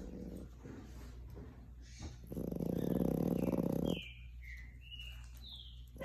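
Bulldog puppy snoring: a quieter snore at the start, then a loud snore about two seconds in that lasts nearly two seconds. A few short high squeaks follow near the end.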